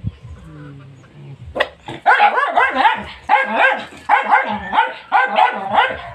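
Dogs barking and yipping in a rapid, excited run of short barks, about three a second, starting about a second and a half in after a quieter start. The dogs are eager for the food being dished out into their bowls.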